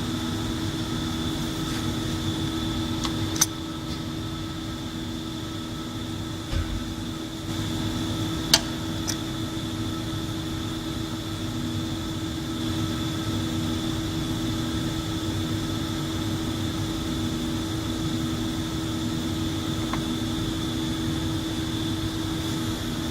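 Steady machinery hum in a workshop, with a few short sharp clicks, likely from parts and tools being handled during the cutting head's disassembly.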